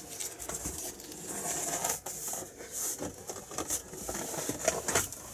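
Irregular rustling, scratching and soft patter of newborn kittens squirming and pushing against each other while nursing on a fleece blanket in a cardboard box, with a few sharper ticks near the end.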